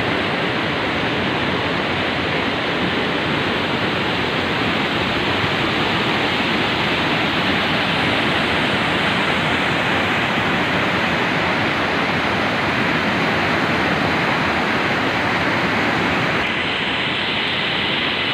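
Steady rush of a rocky mountain stream and small waterfall pouring over boulders, its tone changing about sixteen seconds in.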